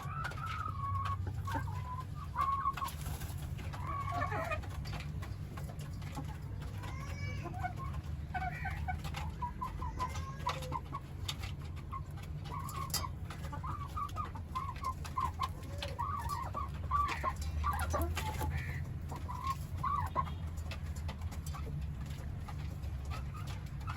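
Chickens clucking with many short, overlapping calls, over a low steady hum.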